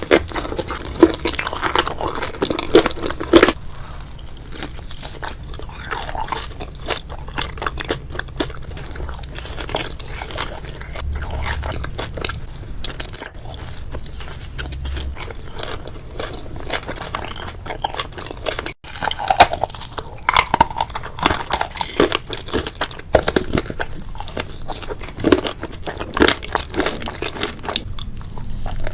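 Close-miked ASMR eating: biting and chewing crunchy food, a dense, irregular run of crisp crunches, with a momentary break about two-thirds of the way through.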